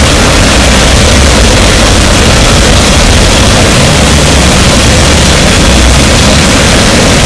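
Harsh noise wall: a very loud, unchanging wall of dense distorted static, with a heavy low rumble beneath hiss that fills the whole range.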